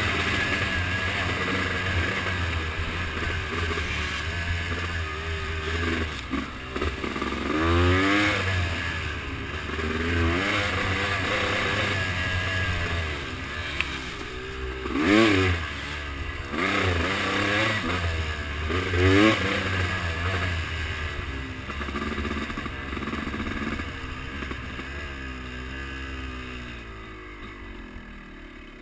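Off-road vehicle engine running and revving up and down repeatedly, with several sharp rises in pitch, its sound fading toward the end.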